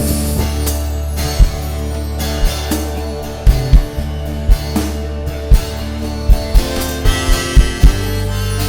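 Rock band playing an instrumental passage live, with no vocals: a drum kit hitting a steady pulse, bass guitar holding long low notes, and guitars.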